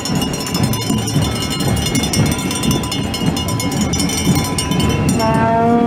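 Street noise of a marching crowd on a wet road, a dense rumble of feet and voices, with a steady high-pitched whine throughout. Near the end a short pitched call, a horn or whistle-like tone, starts up.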